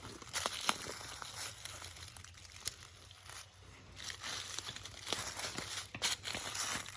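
Irregular rustling and crinkling with many scattered sharp clicks and crackles.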